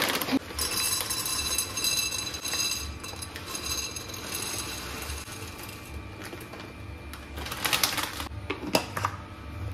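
Small dry star-shaped snacks pouring from a plastic bag into a glass jar, a rattling patter against the glass, with the bag rustling. A loud crinkle of the plastic bag comes near the end, then a few light clicks.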